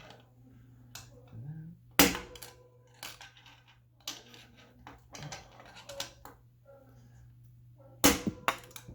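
Hammer striking a screwdriver to knock the old headset cup out of a bicycle's head tube: one sharp metallic blow about two seconds in, lighter taps and clicks, then a quick cluster of hard blows near the end. The louder blows leave a short metallic ring.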